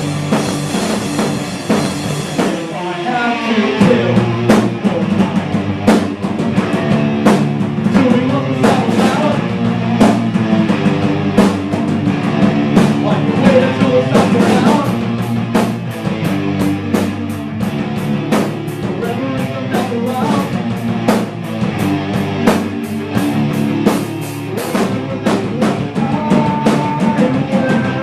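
A rock band playing: drum kit beating steadily under guitar, with some singing.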